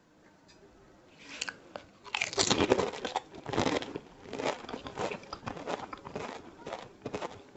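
Crisp fuchka (pani puri) shells, dipped in sour tamarind water, crunching as they are bitten and chewed. A small crackle comes about a second and a half in, then loud crunching starts about two seconds in and goes on as repeated chewing crunches.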